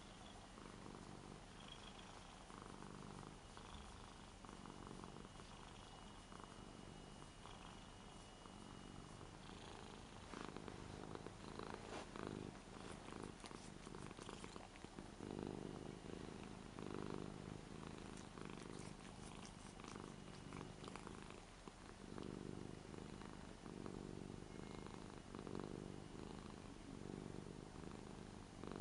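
Ragdoll cat purring while her face is stroked. The purr is a soft, even rumble that grows louder about ten seconds in.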